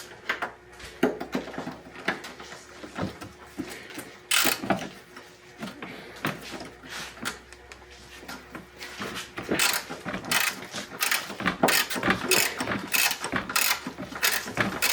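Socket ratchet clicking in quick runs as the bottom bolts of an engine mount are turned, with a few sharper metal knocks. The clicking is sparser at first and comes thick and fast over the second half.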